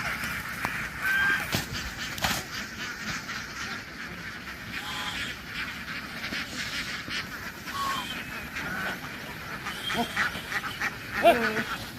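A flock of domestic ducks quacking: a steady din of many overlapping calls, with single louder quacks standing out now and then and a cluster of them near the end.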